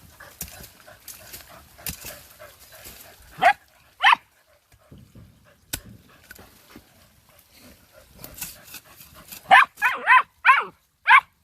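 Ranch dogs barking: two sharp barks about three and a half seconds in, then a quick run of about six excited barks near the end. Each bark drops in pitch.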